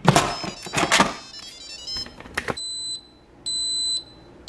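An electric pressure cooker's lid clattering and scraping against the pot as it is set on and twisted shut. It is followed by two half-second electronic beeps from the control panel, with a third starting at the end, as the cooker is set to slow cook for six hours on low.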